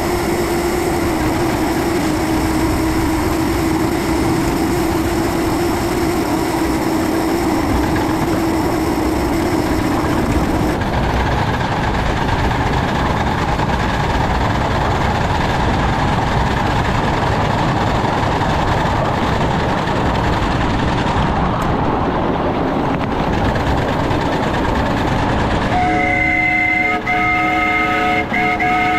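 Miniature 2-6-0 steam locomotive running steadily upgrade, with a continuous rush of running noise and a steady hum for about the first ten seconds. Near the end its multi-note whistle sounds in a few short blasts.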